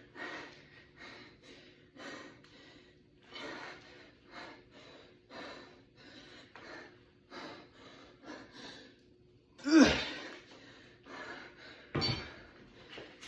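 A man breathing hard in quick, rhythmic puffs through a set of leg exercises, with a loud strained grunt falling in pitch about ten seconds in and another heavy breath near the end.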